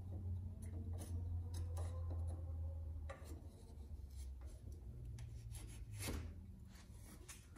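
Wooden board sliding and scraping against a steel bracket clamped in a bench vise, with several light knocks of wood on metal, over a low steady hum.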